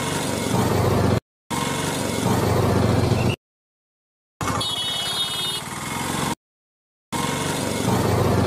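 Vehicle engine sound effect, running with a steady low rumble, cut off abruptly three times by complete dead silences.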